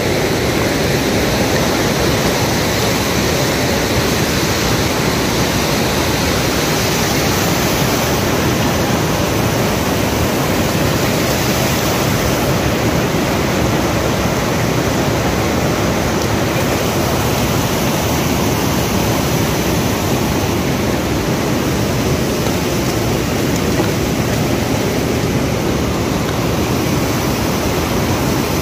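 Rushing water of a shallow stream pouring over rocks: a loud, steady hiss that does not change.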